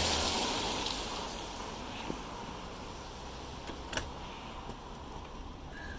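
A rush of outdoor noise fading over the first second, then steady street background. A sharp click about four seconds in comes as the wooden garden gate is handled while a bicycle is wheeled through it.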